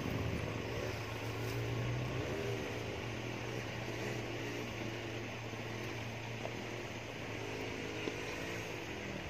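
Small off-road jeep's engine running at low speed as it crawls up a grassy slope: a steady low hum with the pitch rising and falling as the throttle is worked.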